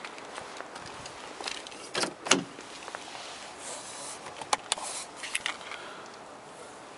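Hands handling a car's rear door panel: sharp plastic clicks and knocks from the trim and the power-window switch. Two louder knocks come about two seconds in, then a run of lighter clicks a little past the middle.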